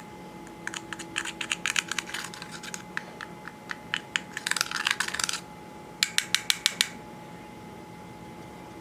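Sharp clicks and taps, coming irregularly for several seconds and densest a little before the middle, then a quick, evenly spaced run of about eight taps.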